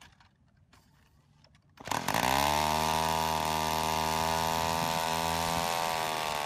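Small two-stroke chainsaw engine on a model airplane, spun by a handheld electric starter, catches a little under two seconds in and then runs steadily, turning the propeller.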